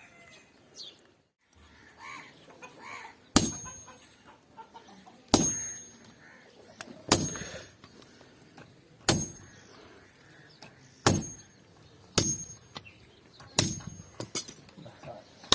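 Hammer blows on hot iron on an anvil, each strike ringing sharply. The strikes come about every two seconds, then quicken near the end.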